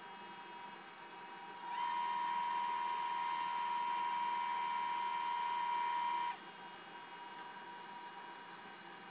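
Steady electronic tone with a hiss that starts sharply about two seconds in and cuts off about four and a half seconds later. It is the activation tone of a surgical electrocautery unit while the pencil is fired.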